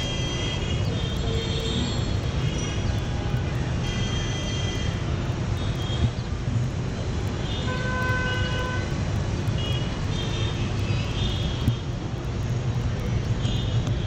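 City street traffic heard from high above: a steady low rumble, with vehicle horns tooting many times over it in short blasts.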